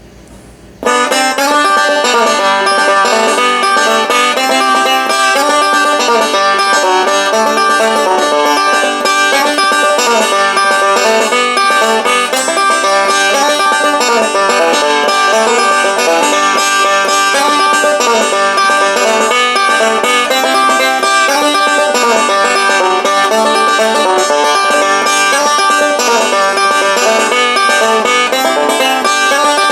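Banjo-led bluegrass music, busy plucked picking throughout, starting about a second in.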